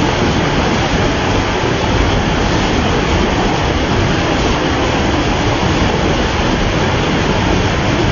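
Waterfall: loud, steady rushing of falling water with no breaks.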